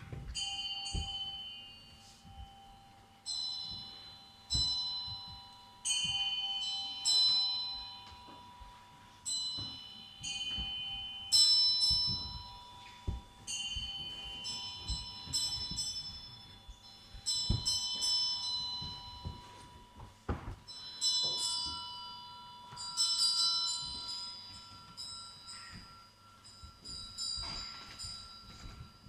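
Metal bells struck one after another in a slow, free-flowing pattern, each strike ringing bright and high and fading slowly, over a few held lower ringing tones and soft low thuds.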